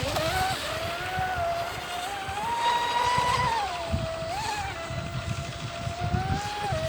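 TFL Outerlimits radio-controlled model boat's motor running with a high whine that rises and falls in pitch as the throttle is changed, over the rumble of the hull on the water.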